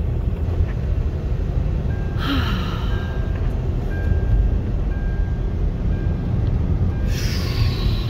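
Road and engine noise heard inside a moving car's cabin, a steady low rumble. A faint short beep repeats about once a second through the middle, and bursts of hiss come about two seconds in and near the end.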